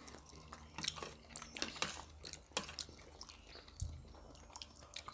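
Quiet eating sounds: chewing, with scattered light clicks of spoons and forks against china plates.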